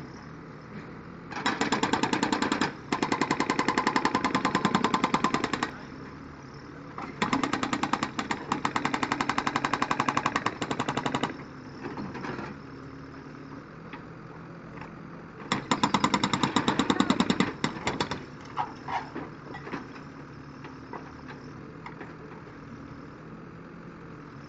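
Hydraulic breaker on a Komatsu WB93R backhoe loader hammering concrete rubble in three long bursts of rapid blows, with a few single knocks after the last. The backhoe's diesel engine runs steadily underneath.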